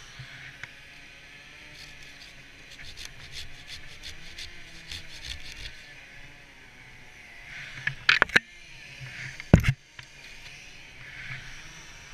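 Curved hand pruning saw cutting into dead wood, a run of quick rasping strokes, followed by two loud sharp knocks about eight and nine and a half seconds in.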